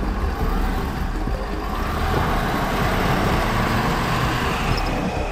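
Ford F-350 Super Duty's diesel V8 working under load as the truck crawls up a steep rock ledge. A rushing noise swells in the middle over the steady engine drone.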